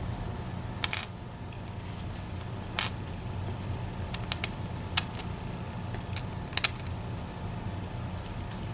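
Small metal lock parts and tools clicking and tapping as an EVVA ICS cylinder is taken apart, in scattered sharp clicks, some in quick pairs, over a steady low hum.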